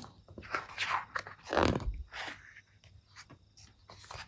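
Pages of a large paperback picture book being turned and pressed flat by hand: irregular paper rustling and crackling, loudest about a second and a half in with a soft thump as the page lands, then a few quieter rustles.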